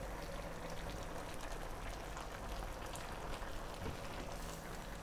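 Crabs and pumpkin in coconut milk simmering in an open pan: a steady fine bubbling and crackling of the broth.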